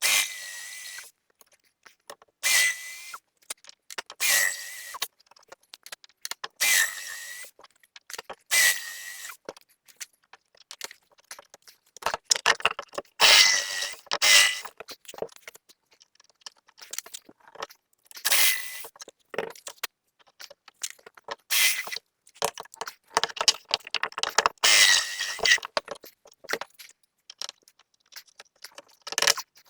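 Power drill running in short, repeated bursts of about a second, with a steady whine over the grinding of the bit, as a hole is drilled and then widened.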